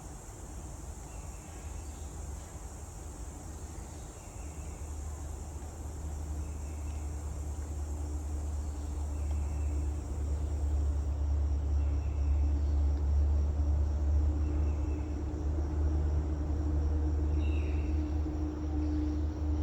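Low engine rumble with a steady hum, growing louder over several seconds as it comes closer. A faint high chirp repeats about once a second behind it.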